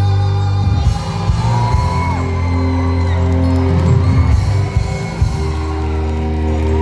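A live band playing a rock song: held chords over bass and drums.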